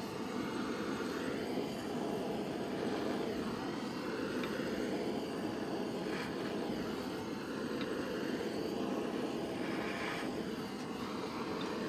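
Handheld gas blowtorch flame burning steadily, scorching the wooden hatchet handle to darken it.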